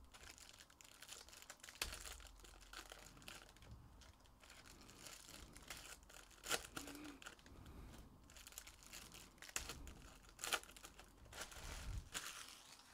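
Foil wrappers of 2023 Bowman Draft Jumbo card packs crinkling and tearing as packs are opened by hand: faint, irregular crackling with a few sharper crackles.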